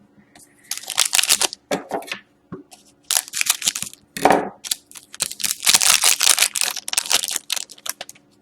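Crinkling and tearing of trading-card pack wrapping handled by hand, in three bouts of loud crackling with short pauses between.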